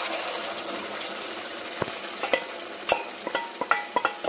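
Mashed boiled turnips poured into hot oil and tomato-onion masala in a steel pot, setting off a steady sizzle that slowly dies down. From about halfway, a spoon scrapes and knocks against the steel bowl and pot in a run of sharp metallic clinks that ring briefly.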